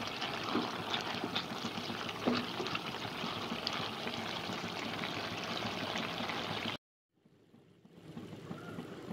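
Chicken and cabbage cooking in a nonstick frying pan, bubbling and sizzling, with a spatula scraping and clicking against the pan as it is stirred. The sound cuts off abruptly about seven seconds in and returns fainter.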